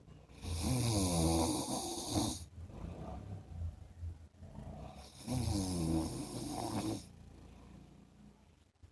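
A man snoring in his sleep: two long snores, each about two seconds, some five seconds apart, with quieter breathing between them.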